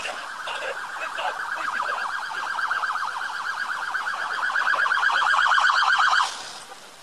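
Emergency vehicle siren in a fast warble, growing louder, then cut off abruptly about six seconds in.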